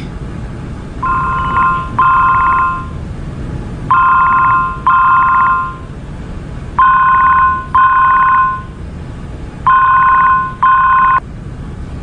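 Mobile phone ringing with an incoming call: a trilling double-ring tone, four double rings about three seconds apart.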